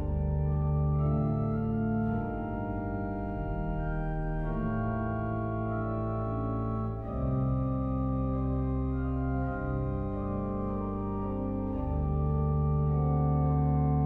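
The Klais pipe organ of Hallgrímskirkja playing slow, sustained chords over deep bass notes, the harmony changing every second or two. It is a piece of new Icelandic organ music.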